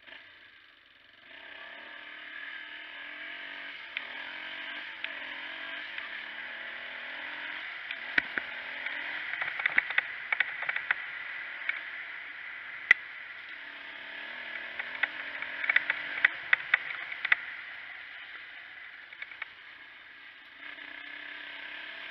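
1997 Yamaha Warrior 350 ATV's single-cylinder four-stroke engine running along a rough dirt trail, its pitch rising and falling with the throttle. Bursts of sharp clattering and rattling come over the bumps from about eight to seventeen seconds in.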